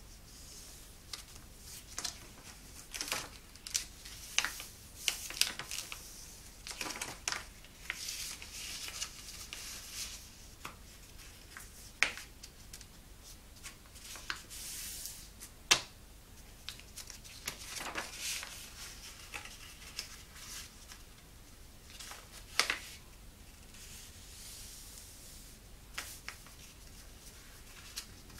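A sheet of paper being folded into a paper plane: irregular rustling and crinkling as it is handled and turned, with crisp snaps when folds are pressed and creased flat, a few of them sharper than the rest.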